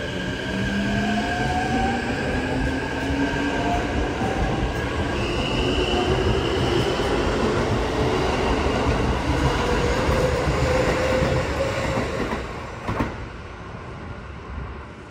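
Keikyu 1000 series electric train with a Mitsubishi full-SiC VVVF inverter accelerating away from the platform: the traction motor whine climbs steadily in pitch over wheel and rail rumble, with a steady high inverter tone that jumps higher about five seconds in. Near the end the sound drops off sharply with a click.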